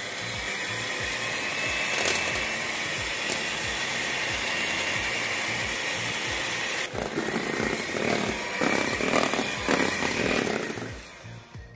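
Electric hand mixer running, its beaters whipping cold heavy cream in a stainless steel bowl toward stiff peaks. The motor whine is steady at first, turns rougher and more uneven with knocks from about seven seconds in, and stops near the end.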